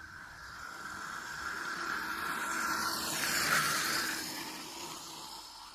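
Electric mini bike with a 12-volt DC motor riding past with a steady whine, growing louder to a peak a little past halfway and then fading.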